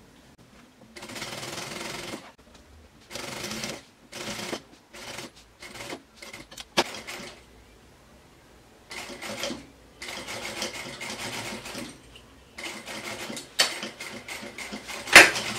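Industrial straight-stitch sewing machine running in short stop-start bursts, stitching bias binding around the edge of a padded fabric changing mat. A few sharp clicks near the end.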